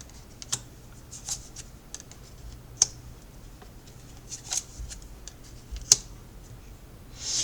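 Tarot cards being handled and laid out on a table: scattered light snaps, slides and taps, the sharpest about three seconds and six seconds in.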